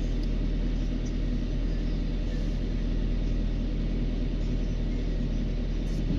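Heavy diesel engine running steadily at constant speed, a low even drone with no change in pitch.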